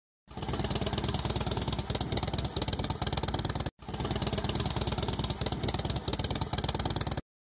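Vintage motorcycle engine running with a rapid, even exhaust beat. It drops out for an instant about halfway, resumes, and stops abruptly near the end.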